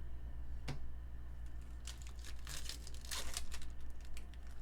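Foil wrapper of a trading card pack crinkling and tearing open, in a few short rustling bursts between about two and three and a half seconds in, after a single click near the start.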